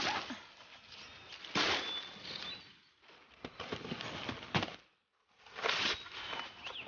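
Rustling of leaves and vines in several bursts, with sharp knocks and a thump, as a watermelon is pulled from its vine and set in a wicker basket. A few faint bird chirps are heard.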